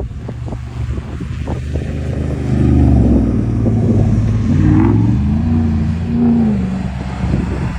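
Pickup truck engine revving under load, louder from about two and a half seconds in, its pitch rising and falling as the throttle is worked. Several sharp knocks in the first two seconds.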